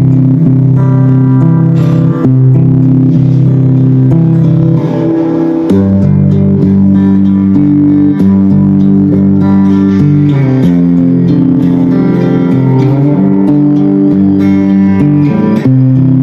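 Electric guitar played through a Positive Grid Spark 2 practice amplifier: loud, held chords that change every few seconds.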